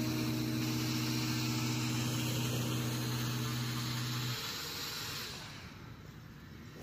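Whirring hiss from a Bugs 6 racing quadcopter's spinning propellers, fading out about five seconds in as the drone is caught and its motors stop. Under it, a held guitar chord from background music rings and ends about four seconds in.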